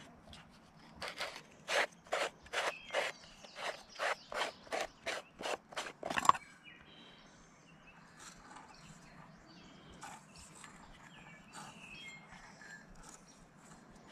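Spinning fishing reel ratcheting in a quick run of short bursts, about three a second, as line that sticks on the spool is worked loose. The bursts stop about six seconds in.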